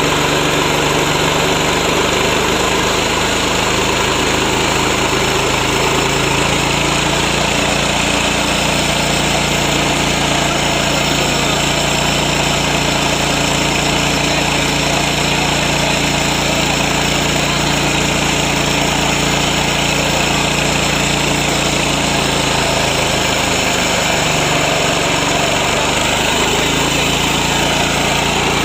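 Small single-cylinder petrol engine (MGX 210, about 7 HP) of a Yasuka 3-in-1 mini rice mill running steadily at high speed, with a loud, even mechanical din. A little over three-quarters of the way through, its pitch sags briefly and then recovers, as under a change of load.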